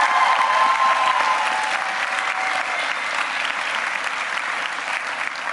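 Audience applauding, with some cheering voices over the clapping in the first couple of seconds; the applause slowly dies down.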